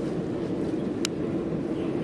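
Charcoal forge burning under a steady air blast: an even rushing noise, with one sharp crackle from the coals about a second in.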